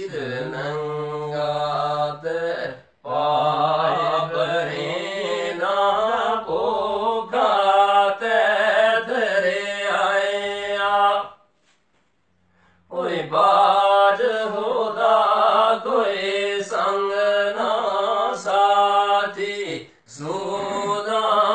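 Men singing Pahari kalam, devotional Sufi poetry, in long wavering chant-like phrases, with short breaks for breath about three seconds in, for a second or so near the middle, and again near the end.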